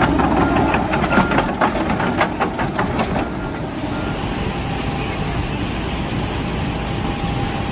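A heavy machine's engine running, with a quick series of knocks and clanks for the first few seconds, then a steadier rumble.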